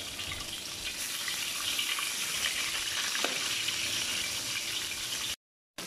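Fish pieces sizzling in hot oil in a steel wok, a steady hiss, with one light clink of the metal turner against the wok about three seconds in. The sound cuts out for about half a second near the end.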